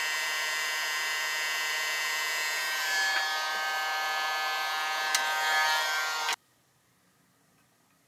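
Hot-air rework station's blower running steadily, a rushing hiss with a whine, stopping abruptly about six seconds in. It is being used to desolder the burnt CN3704 charging IC.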